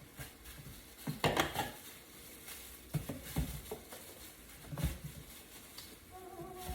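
A few separate knocks and clatters of kitchenware being handled and set down, the loudest a little after one second in and near five seconds.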